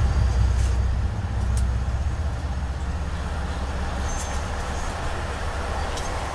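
Passenger train running, heard from inside the coach as a steady low rumble. The rumble is heaviest for about the first second while a diesel freight locomotive passes alongside, then eases as the freight cars go by.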